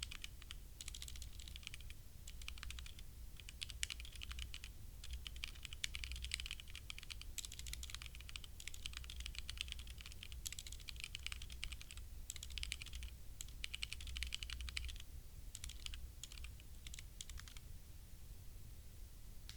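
Typing on a HyperX Alloy Origins Core mechanical keyboard with linear HyperX Red switches: fast runs of key clicks in bursts separated by short pauses, with the typing stopping near the end.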